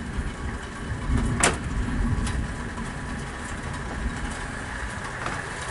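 Steady hiss of rain from a storm, with a low rumble swelling over the first couple of seconds and one sharp tap about a second and a half in.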